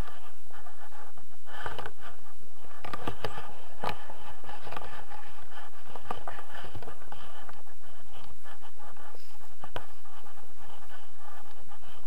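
Wind buffeting a camera microphone in an open field, with scratching and a few sharp knocks from the camera and harness being handled.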